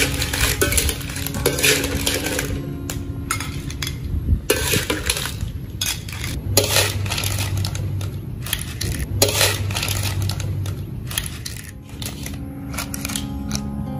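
Metal ladle scraping and clinking in a metal wok as cooked clams and okra are scooped out, the clam shells clattering onto a glass plate in many short, irregular clicks.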